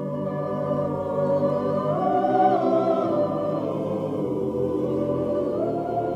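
Background music: a choir holding sustained chords that shift slowly, the opening of a Christmas song.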